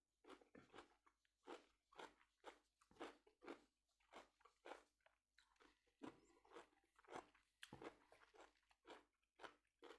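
Faint close-miked chewing of food, with soft crunchy bites at roughly two a second.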